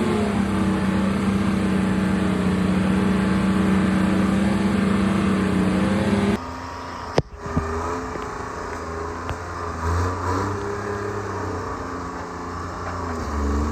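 Treefarmer C5 forwarder engine running steadily. About six seconds in, the sound cuts abruptly to a quieter, lower engine note, with a sharp knock just after.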